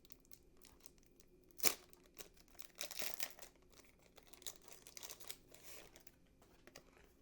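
Trading-card pack wrapper crinkling and being torn open by hand, with a sharp snap about one and a half seconds in.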